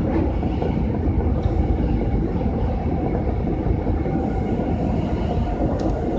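Osaka Metro 22 series subway train running, heard from inside the car: a steady low rumble of wheels on rail in the tunnel, with faint steady tones above it.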